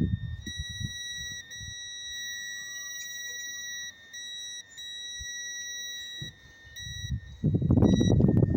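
Multimeter continuity beeper sounding a steady high tone that drops out briefly a few times and comes back, as the test probes make and lose contact on the wiring pins. Near the end a loud low rumbling noise comes in.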